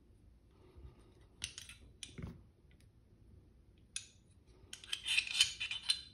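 Steel parts of a Glock 19 pistol's slide clicking and scraping against each other as the slide is taken apart in field stripping: a few separate clicks, then a quick run of metallic rattling and scraping near the end.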